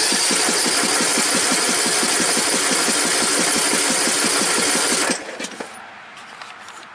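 Electric starter cranking the Briggs & Stratton 500 cc single-cylinder engine of a Troy-Bilt Pony riding mower, with an even pulsing rhythm. It stops suddenly about five seconds in without the engine catching, a failed first start of the new engine.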